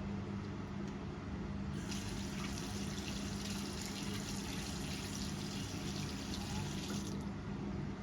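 Water running from a tap into a sink for about five seconds, turned on about two seconds in and shut off near the end. A steady low hum runs underneath.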